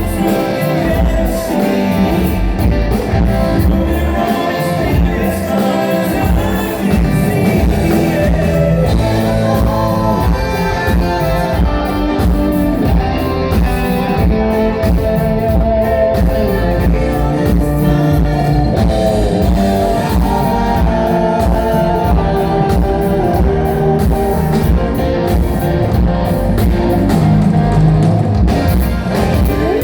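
Rock band playing live through a PA at full volume: electric guitar, drum kit and bass, with singing.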